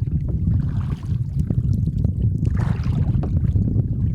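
Wind buffeting the microphone in a steady low rumble while canoeing into a headwind, with faint splashing and gurgling of water from the paddles and the canoe.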